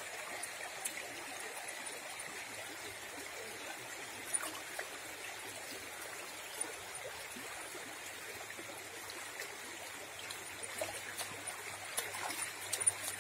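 Shallow river running steadily over stones and gravel. Near the end, a few short splashes and clicks from a dog wading in the shallows.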